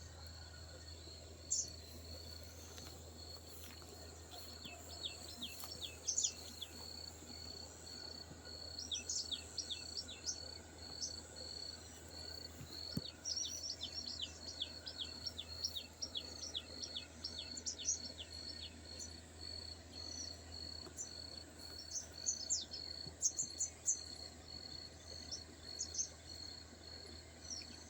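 An insect trilling steadily in an even, pulsing high note, with a bird repeatedly calling in runs of quick, downward-sliding whistles. A low steady hum lies underneath.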